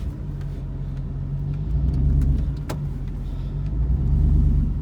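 Ford 460 big-block V8 running at low revs as the truck slides down a snowy slope, swelling louder twice as the throttle is worked. A single sharp click sounds midway.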